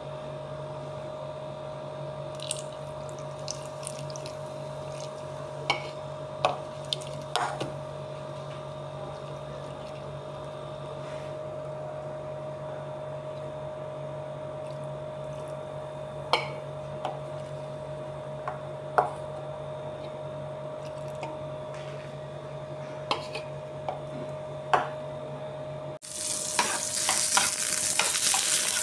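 A steady low hum with scattered light clicks and taps. About three seconds before the end it gives way suddenly to butter sizzling and crackling in an aluminium frying pan on a gas burner, with a spoon stirring and scraping in the pan.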